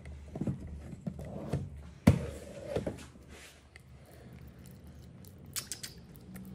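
Persian cat eating wet food from a stainless steel bowl: irregular wet chewing and licking smacks, with one sharp knock about two seconds in.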